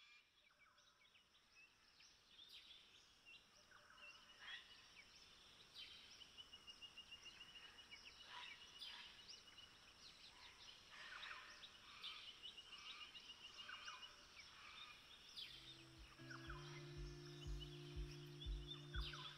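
Faint outdoor ambience with birds chirping and calling, including a fast repeated trill partway through. Near the end, music with a low, regular beat comes in.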